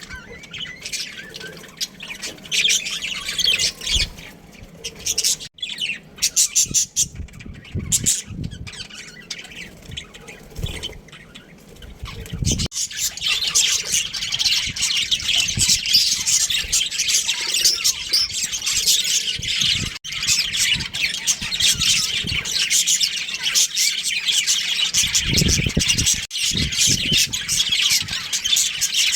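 Budgerigars chirping and squawking, sparse at first, then a continuous busy chatter from about halfway through. A few low thumps are mixed in.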